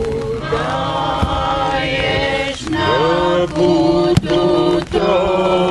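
A group of voices singing a slow church hymn in long held notes, with short breaks between phrases. There is a single sharp click about four seconds in.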